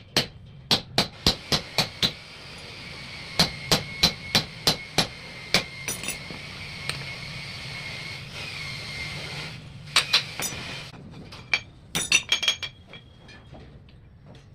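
Hammer striking metal in quick runs of blows, about three a second, then a few short clusters of lighter taps near the end. A steady high whine sounds under the middle stretch and stops about two-thirds of the way through.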